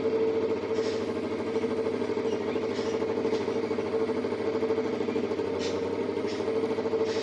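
Four-cylinder motorcycle engine of a custom two-seater off-road buggy running steadily, with no revving.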